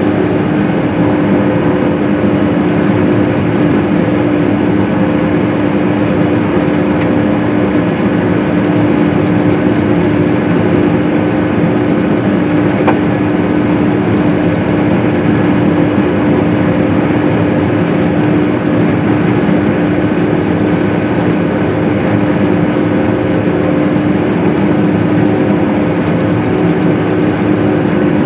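Case IH swather (self-propelled windrower) running steadily while cutting hay: an even engine-and-machinery drone with a strong steady hum.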